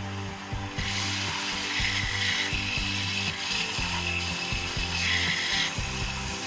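Scheppach belt sander running, with a small wooden disc pressed against the moving sanding belt. The sanding comes in several passes, each a rasping hiss that starts and stops over the motor's steady running.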